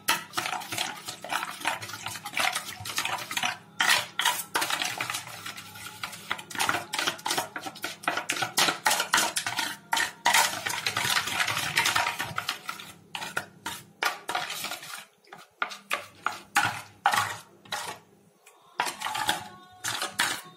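A hand mixing a thick yogurt-and-chilli marinade in a stainless steel bowl: wet mixing sounds with many irregular knocks and scrapes against the steel. There is a brief lull about three quarters of the way through.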